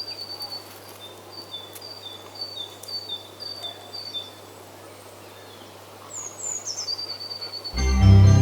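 A songbird singing a repeated two-note phrase, a high note then a slightly lower one, about twice a second for several seconds, then a few quick falling notes and a longer held note. Loud keyboard music starts near the end.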